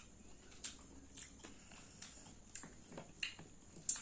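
Eating green mussels by hand: a run of irregular sharp clicks and wet smacks from the shells being handled and pulled apart and from chewing, the loudest near the end.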